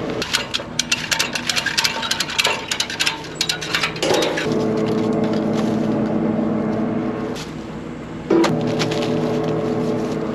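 A machine engine runs with a steady hum, with a quick run of sharp cracks and clicks through the first four seconds and a single knock about eight seconds in.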